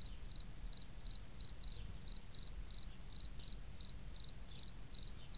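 A cricket chirping steadily, short high chirps repeating about three times a second.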